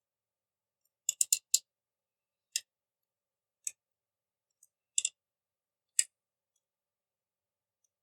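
Sharp clicks from a hot glue gun's trigger being squeezed: a quick run of four about a second in, then single and paired clicks about a second apart.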